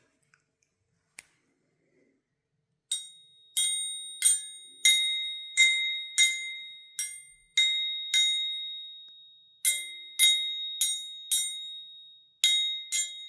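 Toy musical instrument played note by note: bright, bell-like struck tones, each ringing and fading, about one and a half a second, starting about three seconds in with a short pause past the middle.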